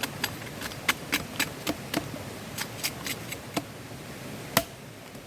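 A blade striking a thin, wet piece of wood again and again to split it down the middle: about a dozen quick, sharp knocks, then one louder knock near the end.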